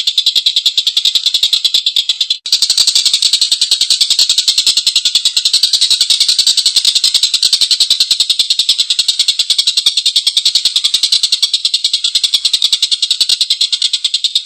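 Tengkek buto, a kingfisher, giving a long, harsh, cackling rattle: a fast, even run of notes that breaks off for a moment about two and a half seconds in, then goes on.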